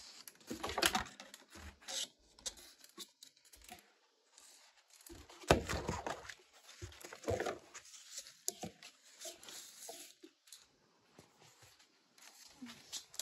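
Thin clear plastic humidity dome crinkling and clicking as it is handled and pressed down onto a plastic seed-starting tray, in several irregular bursts.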